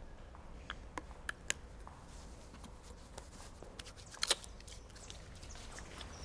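Low steady room hum with a few small clicks and soft rustles from hands fidgeting and rubbing together; the sharpest click comes about four seconds in.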